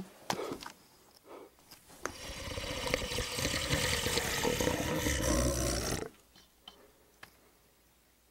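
A few faint knocks, then a loud rushing noise that swells over about four seconds and cuts off suddenly.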